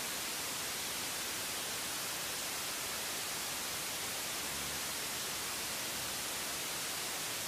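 Television static: a steady, even hiss of white noise with no change in level.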